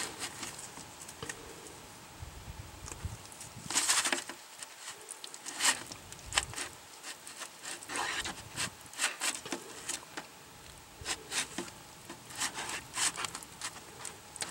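Thick Marine Tex epoxy putty being stirred together with its hardener using a flux brush on a cardboard backing: irregular soft scraping and sticky smacking strokes, one or two a second.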